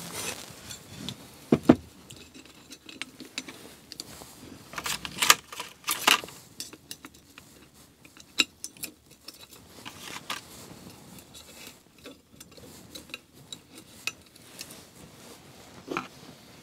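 Steel needle-bearing races of a Cannondale Headshok fork clinking and clicking as they are handled and fitted around the inner shaft. The small metal clinks come at irregular intervals, with clusters near the start and around five to six seconds in.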